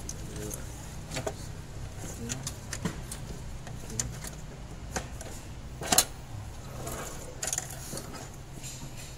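Scattered metallic clicks and knocks of parts and hand tools being handled on the top of a Toyota Hilux engine, with one sharper knock about six seconds in, over a low steady hum.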